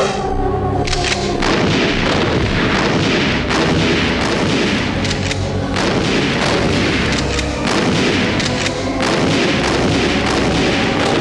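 Music, then about a second and a half in a dense, unbroken barrage of booms and sharp bangs takes over: a sound-effect track of heavy gunfire or explosions.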